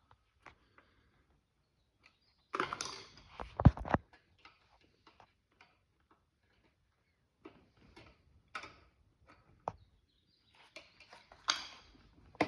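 Plastic and metal parts of a BMW E36 seat back being handled and pushed together by hand. Scattered clicks and knocks, with a louder clatter and a sharp knock about three and a half seconds in, then sparse small clicks and more clatter near the end.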